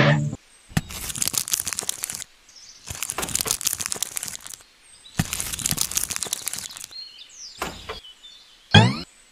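Plastic biscuit-packet wrappers crinkling in three separate bursts as the packets are handled and set down. Near the end a bouncy tune starts, with repeated sliding boing-like notes.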